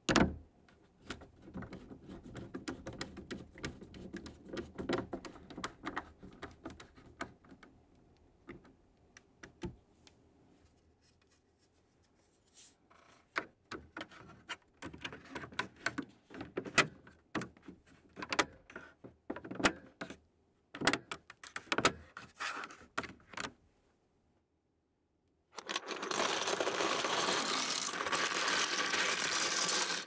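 A screwdriver turning a screw into a mechanical keyboard's plate, then a run of sharp plastic clicks as the switch-filled keyboard is handled. Near the end, the loudest sound: a heap of plastic keycaps poured from a plastic box, clattering onto the keyboard for about five seconds.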